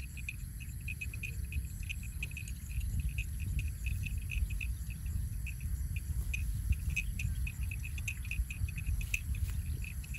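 An insect chirping in a steady, even rhythm of about three or four short chirps a second, over a steady low rumble.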